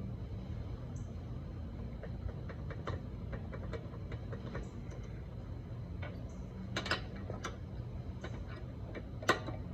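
Hand tools on the wheel's lug nuts, a socket and ratchet clicking and clinking against metal in irregular small clicks, with a cluster about seven seconds in and one sharp metallic clink near the end. A steady low hum runs underneath.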